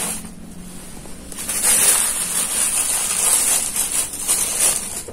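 Clear plastic bag of resistors crinkling and rustling as it is handled, starting about a second and a half in and going on irregularly to near the end.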